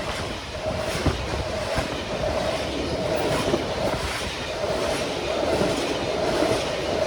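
Norfolk Southern welded rail train rolling past at about 53 mph, its wheels rumbling and clattering on the rails, with a ringing tone that comes and goes.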